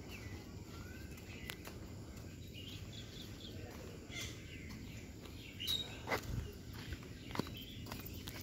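Outdoor background with faint bird chirps, and several soft thumps, mostly in the second half, from footsteps and handling of the handheld phone while walking.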